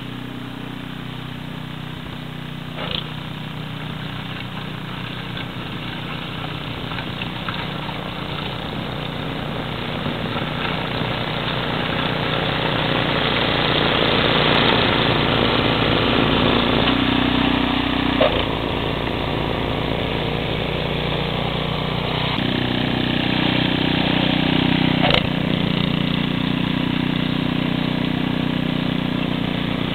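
Snowblower engine running steadily while the machine churns through and throws snow, growing louder as it comes close about halfway through. Three brief sharp knocks are heard along the way.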